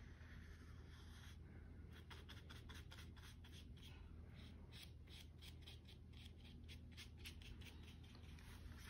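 Faint, quick strokes of a paintbrush being dragged over a paper plate, a soft scratchy swish repeated many times at an uneven pace, starting about a second and a half in. A low steady hum lies underneath.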